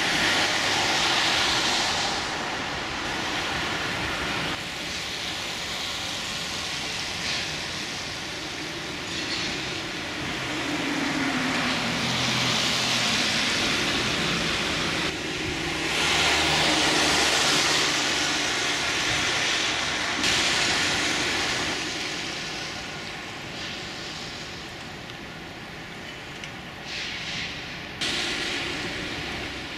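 Steady hiss of rain falling on a wet car park, with a low rumble in the middle. The hiss jumps abruptly in level several times.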